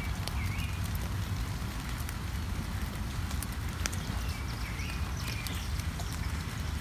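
Light spring rain dripping on leaves and flowers: scattered sharp drop ticks over a steady low rumble, with a few faint short chirps early on and about two-thirds of the way in.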